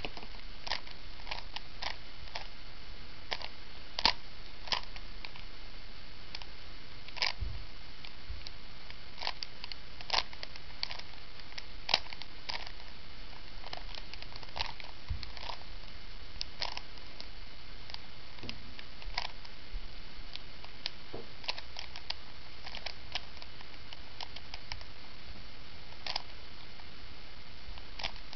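A plastic Rubik's Cube being turned by hand, its layers clicking at an irregular pace over a steady hiss.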